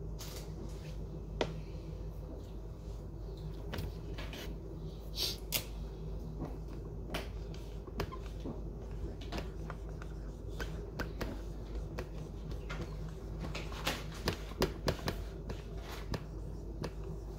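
Cutlery clinking and scraping against plates during a meal: scattered light clicks and taps, with a quick run of clinks about three-quarters of the way through, over a steady low hum.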